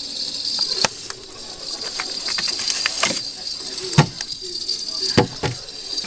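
Floured fish frying in a pan, a steady high sizzle, with a few sharp knocks and clatters of utensils.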